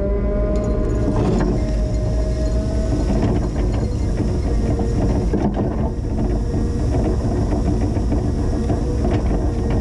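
Linde H20 EVO forklift running steadily while plowing snow, with scattered knocks.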